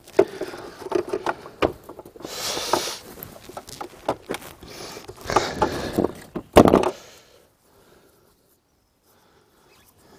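Handling noise of a plastic oil filter housing being unscrewed by hand from a Ford/Volvo five-cylinder engine: irregular clicks and the rub of a cloth rag and gloved hands against plastic, with a louder knock about six and a half seconds in, after which it goes nearly quiet.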